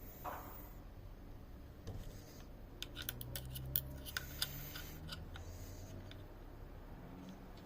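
A quick run of small, sharp metallic clicks and taps, about a dozen over a second and a half near the middle, from metal parts and tools being handled while a rifle is worked on.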